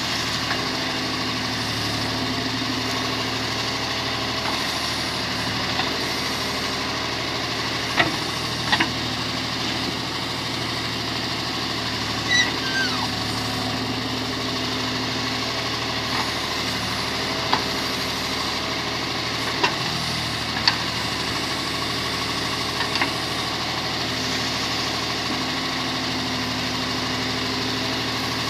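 Tractor diesel engine of a John Deere 5310 with a BULL backhoe loader, running steadily at an even pitch. Now and then a short, sharp knock sounds over the engine, about seven times.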